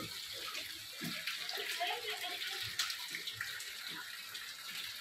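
Shallow floodwater sloshing and lapping across a house floor as people move in it, with faint voices in the background.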